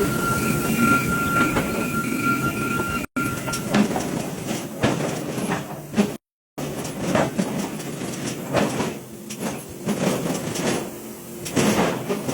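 Forge-shop machinery working a heavy hot steel workpiece: a continuous mechanical rumble with repeated clanks and knocks, and a steady whine over the first few seconds. The sound cuts out briefly twice.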